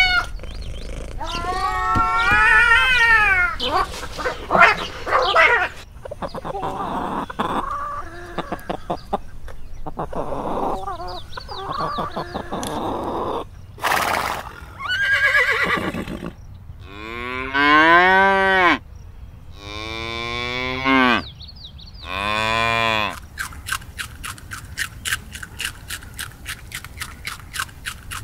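A string of farm-animal calls, among them cattle mooing: several separate drawn-out calls, three of them in quick succession in the second half. Near the end comes a fast, even rattling.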